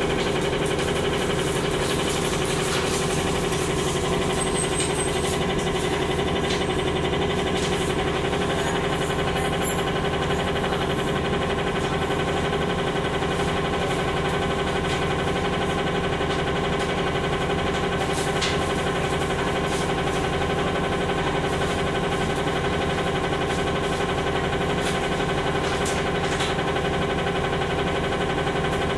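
Cummins ISL-G natural-gas engine of an Orion VII bus idling steadily, heard from inside the passenger cabin, with a few faint clicks and rattles.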